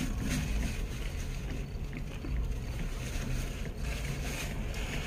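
Steady low vehicle rumble with a faint hum, heard inside a truck cab.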